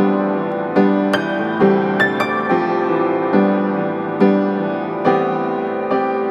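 Background music: a slow melody of single struck piano notes, each ringing on and fading, a new note every half-second to a second.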